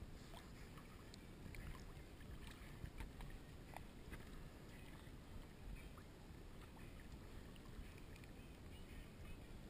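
Faint lapping of small lake waves around a camera held at the waterline, with scattered light ticks and splashes of water against its housing.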